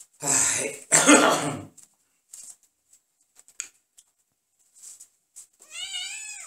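Two loud coughs from a person, then near the end a kitten's single meow that rises and falls in pitch.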